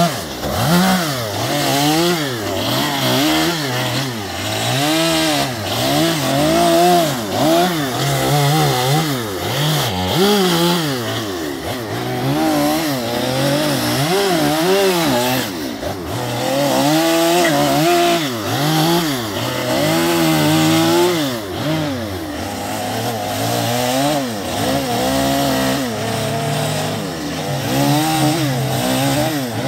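Stihl chainsaw carving western red cedar, its engine pitch rising and falling over and over, roughly every second or two, as the carver works the cut.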